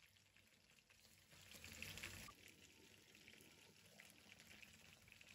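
Faint simmering of fish curry in a clay pot: a soft crackle of small bubbles that swells a little about two seconds in.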